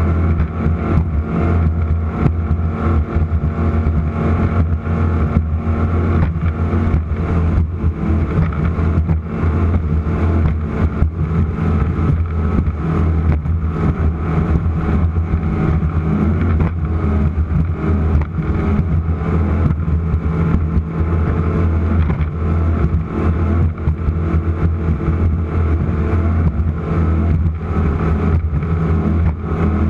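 Offshore race boat running flat out, its engines a loud steady drone, with frequent short knocks and rattles throughout.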